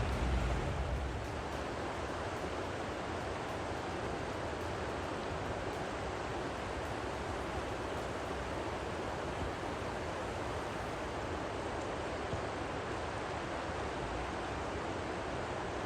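A steady rushing noise with no distinct events, as from flowing water or wind; a low rumble fades out about a second in.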